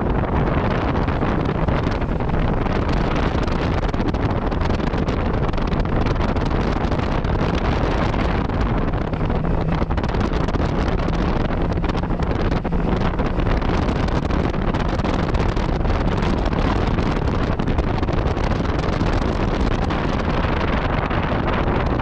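Steady wind noise on the microphone from riding a Yamaha MT-09 Tracer motorcycle, with the bike's three-cylinder engine running faintly underneath.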